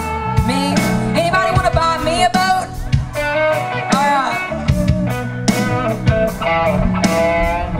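Live country band playing through a PA: a woman sings lead over electric guitars, bass and a drum kit.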